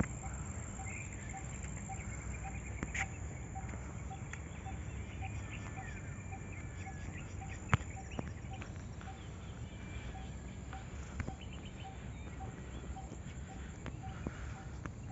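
Outdoor grassland ambience: faint birds chirping now and then over a steady low rumble on the phone's microphone, with a soft pulse repeating about twice a second, typical of an insect or bird call. One sharp click comes about eight seconds in.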